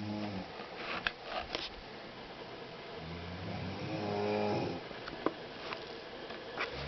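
Snoring: one long, droning snore about three seconds in, with the tail of a snore at the start and the next one beginning right at the end. A few faint clicks fall between the snores.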